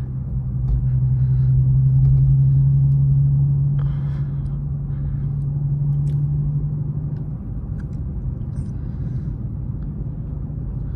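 Infiniti Q50's 3.7-litre V6 and road rumble heard inside the cabin while driving slowly: a steady low drone that swells about two seconds in, then fades out after about seven seconds, leaving only the rumble.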